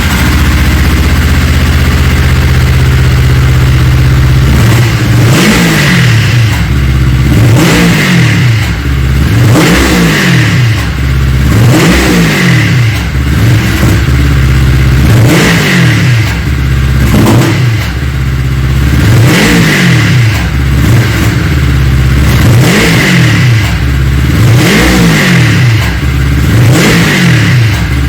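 Yamaha Phazer snowmobile's four-stroke twin engine idling for a few seconds, then revved up and let fall back again and again, about once every two seconds. It is a test run after the throttle safety microswitch was repaired: the engine now picks up revs instead of misfiring.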